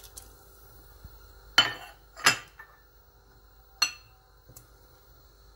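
Three sharp clinks of a bowl knocking against a steel pressure-cooker pot as grated onion is emptied into it, each with a brief metallic ring.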